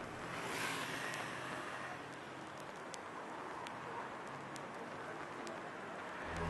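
Faint, steady outdoor ambient noise, an even wash like distant traffic and surf, swelling briefly about half a second in, with a few faint ticks.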